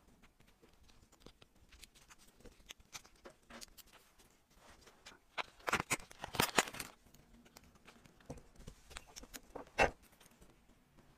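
Small clicks and rustles from handling a leather watch strap and steel watch case, with a plastic bag crinkling loudly about halfway through and one sharp click near the end.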